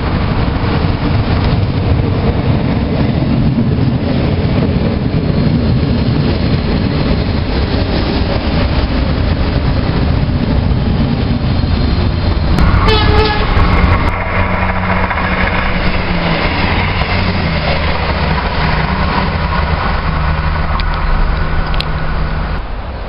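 Electric passenger train at a station platform, running close by with a continuous rumble and rail noise. About 13 seconds in come a few sharp clicks and a brief high tone, after which a steady, lower hum takes over.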